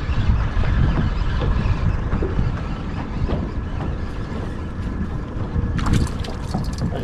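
Open-air noise on a small fishing boat picked up by a GoPro: a steady low rumble of wind and water. A run of clicks and rattles starts about six seconds in.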